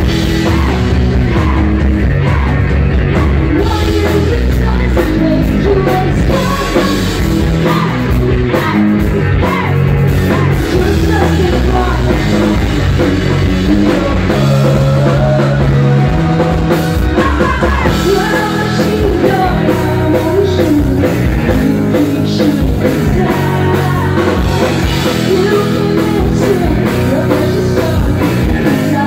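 Live rock band playing loud and steady: a female lead voice singing over electric guitar, bass guitar and a drum kit.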